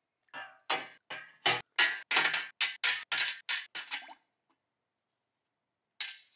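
Small steel pistol parts dropped one after another into an enamel roasting pan of liquid: about a dozen short knocks and splashes, a few each second, then one more near the end.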